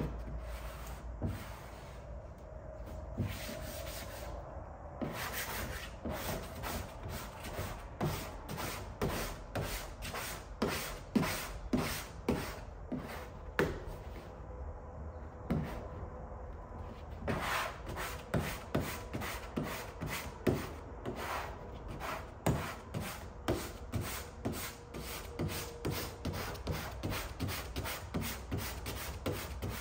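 Squeegee rubbing a dry-applied vinyl hood stripe down onto a car's hood in quick repeated strokes, about two a second, with a short pause about halfway through.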